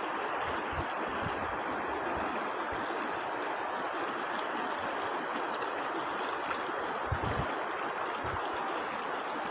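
Floodwater of a wide, muddy river rushing steadily, with a few short low thumps.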